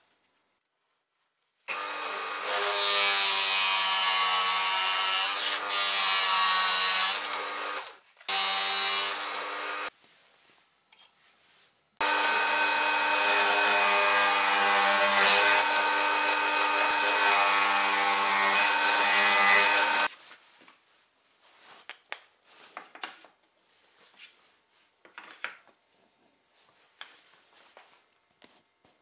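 Electric power tools cutting wood: a plunge router runs in two short stretches, then a drill press bit bores into a pine block for several seconds. Scattered light knocks of wooden parts being handled follow near the end.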